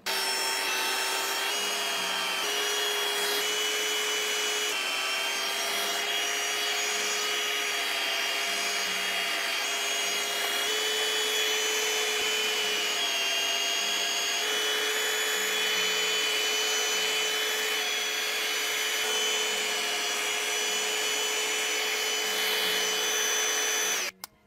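Electric meat grinder running as food is pressed down its feed tube with a plunger: a steady motor whine whose pitch shifts slightly now and then, switching off abruptly near the end.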